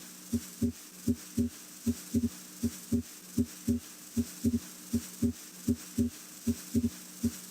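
Human heart sounds heard through a stethoscope at the pulmonic area: a steady lub-dub of S1 and S2 at about 75–80 beats a minute. With the patient breathing deeply, S2 splits on inspiration into its aortic (A2) and pulmonic (P2) components, a normal physiologic split.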